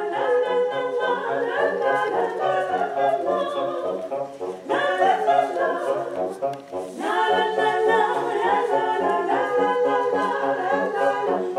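Several voices singing a cappella in harmony, over a low part that pulses in a steady beat.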